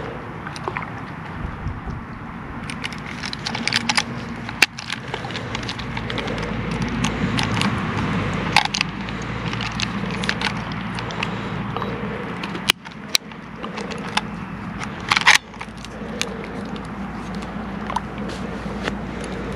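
Close handling noise while a largemouth bass is clipped into a plastic lip grip and hung on a handheld digital scale: scattered sharp clicks and crackles, with a few louder snaps, over a steady low rumble.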